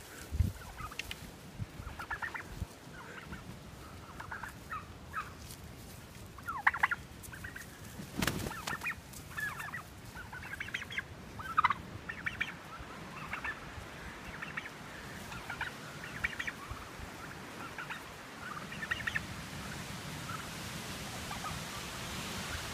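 A flock of heritage turkeys calling: many short, high calls scattered throughout. There is one low thump about eight seconds in.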